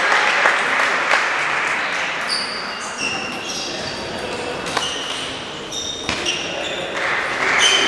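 Table tennis ball clicking sharply off bats and the table during a rally, with short high squeaks from players' shoes on the sports-hall floor, over a murmur of voices.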